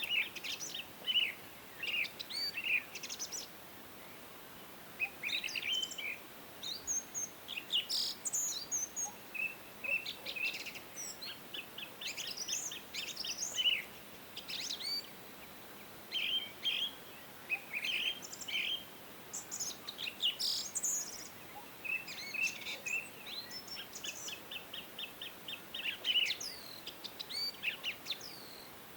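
Songbirds chirping throughout: short high chirps and quick trilled runs of repeated notes, over a faint steady hiss.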